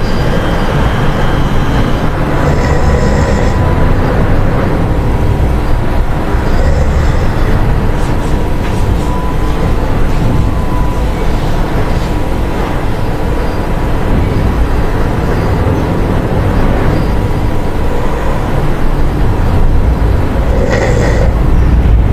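Loud, steady low rumble with a monkey's sleeping breaths or snores heard faintly over it a few times.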